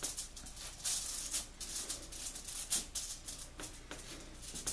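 Aluminium foil crinkling and rustling in quick, irregular crackles as hands press pizza dough flat on a foil-lined baking sheet.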